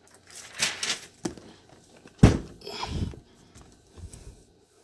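Handling noise as a cardboard box is brought into place and set down: scuffing and rustling, a click, and one solid thump a little after two seconds in.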